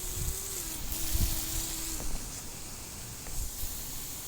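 Gusty wind buffeting the microphone, over the steady hiss of a garden hose spraying water.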